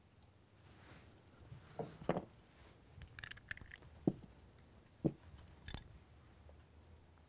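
Faint clicks and small taps of tweezers and makeup tools being handled, scattered through a few seconds.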